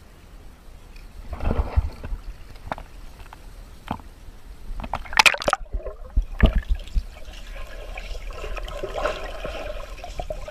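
Pool water splashing and lapping around a camera at the surface, with a few sharp splashes about five seconds in. Then the sound turns muffled and gurgling as the camera is underwater.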